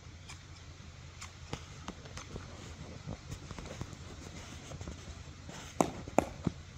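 Footsteps of high-heeled boots clicking on a hard surface: faint, spaced taps at first, then several louder steps near the end. A steady low rumble runs underneath.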